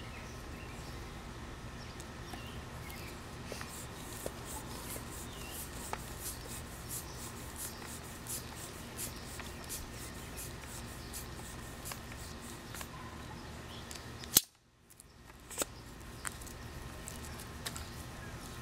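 Hand floor pump worked in quick, even strokes, pumping air into an air cannon's chamber ahead of firing. A single sharp click about fourteen seconds in, after which the even pumping stops and only a few scattered clicks follow.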